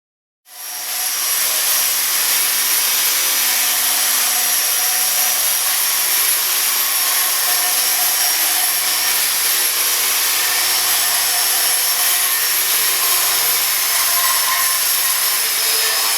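Metabo WE 15-125 HD renovation angle grinder running steadily, grinding a surface, with a high whine over the noise of the disc. It starts about half a second in.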